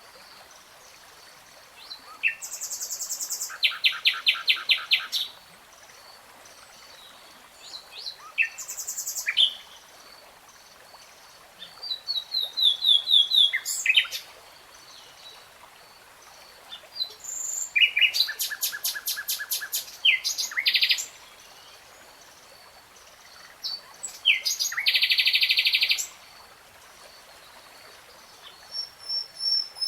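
A songbird singing in separate phrases, about six of them, each a rapid trill of repeated high notes lasting one to three seconds, with pauses of a few seconds between phrases.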